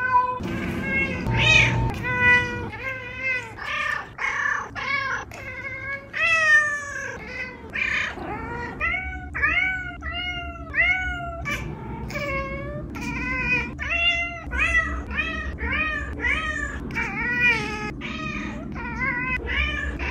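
Domestic cats meowing again and again, one call after another, about one or more a second, each meow rising then falling in pitch.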